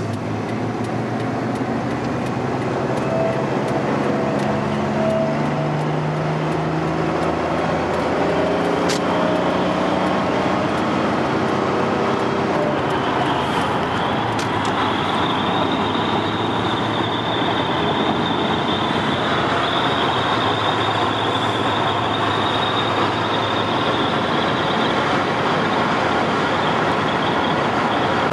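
Engine and road noise inside a vehicle's cabin as it accelerates onto a highway, the engine note rising over the first several seconds. After that comes steady tyre and wind noise at highway speed, with a thin high whistle joining about halfway through.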